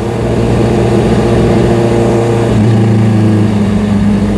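Honda CBR650R's inline-four engine running steadily while riding, with the engine note shifting down about two and a half seconds in.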